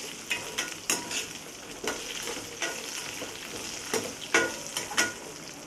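Spices, green and dried chillies, cashews and small onions sizzling in hot oil in an iron pan, with a spatula stirring and knocking sharply against the pan several times.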